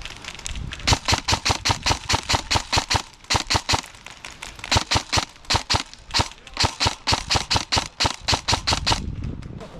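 Airsoft electric rifle firing 6 mm BBs: rapid strings of sharp shots, about eight a second, in several bursts with short pauses between them.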